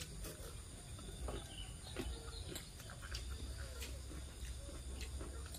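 Quiet background of people eating at a table: scattered faint clicks and taps of spoons and fingers on plates over a low steady hum.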